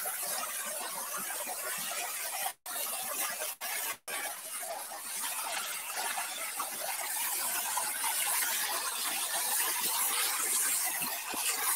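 Water spraying from a hose onto a tractor's tyre and bodywork, a steady hiss that cuts out briefly twice a few seconds in.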